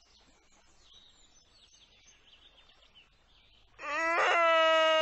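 Faint bird chirps, then nearly four seconds in a voice suddenly breaks into a loud, long wail held on one steady pitch.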